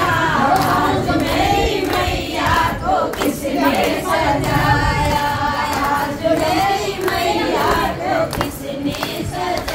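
Several voices singing together in a group, the voices overlapping and uneven, with some talk mixed in.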